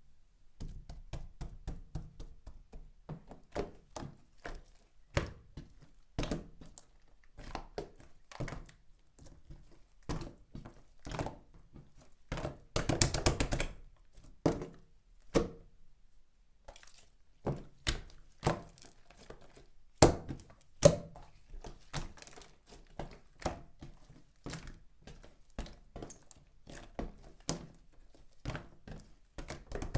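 Hands squishing, poking and folding slime, making irregular sticky pops and clicks, with a denser run of crackling about halfway through.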